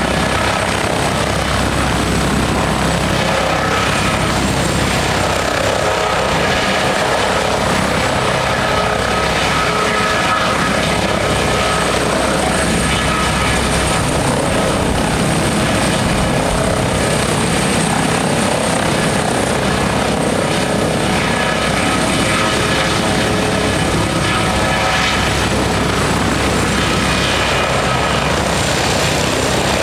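Helicopter running steadily, rotor noise with a high, steady whine over it.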